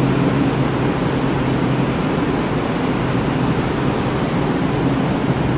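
Steady hum and rush of a metro train standing at an underground platform, its air conditioning and onboard equipment running with a low steady drone.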